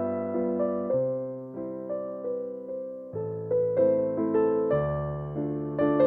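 Slow background piano music: single notes and soft chords struck about every half second, each fading away.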